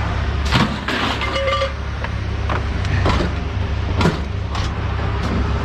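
Sheet-metal scrap appliances clanking and knocking as they are handled and dropped, with one brief metallic ring. A steady engine hum runs underneath.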